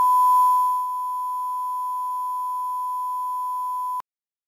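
A steady single-pitch test tone, the 1 kHz line-up beep of a film-style leader. It holds one unchanging pitch and cuts off suddenly about four seconds in.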